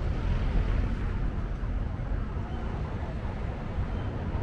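City street ambience: a steady low rumble of traffic, with faint voices in the background.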